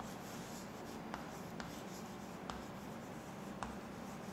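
Chalk writing on a chalkboard: faint scratching of the chalk with a few sharp taps as the letters are formed.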